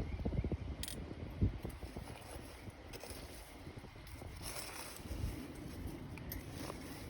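Wood campfire burning down to embers, with a sharp crackle about a second in, under a low wind rumble on the microphone.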